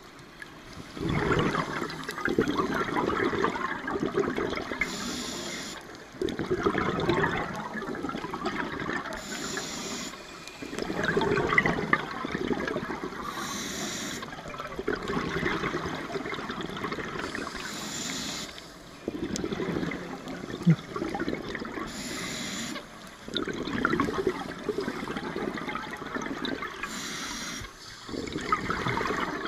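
Scuba diver breathing through a regulator underwater in a slow, steady rhythm: each exhalation is a loud gush of bubbling two to three seconds long, and each inhalation is a short hiss from the regulator's demand valve. About six breaths, one every four to five seconds.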